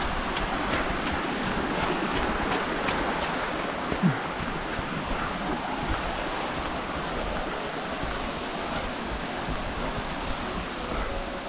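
Mountain stream rushing over small cascades beside the trail, a steady rushing noise, with the runner's footfalls on the path and a brief louder thump about four seconds in.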